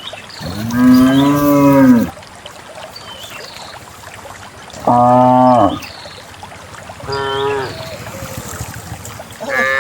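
Cows mooing: four calls. The first, about half a second in, is the longest and lowest and the loudest. Two shorter, higher calls follow in the middle, and another starts near the end.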